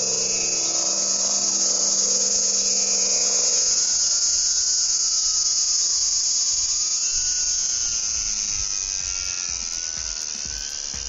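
The brushless outrunner motor (1050 kV) and propeller of a small RC aerobatic plane whining in flight, its pitch rising and falling as the plane manoeuvres. Wind buffets the microphone near the end.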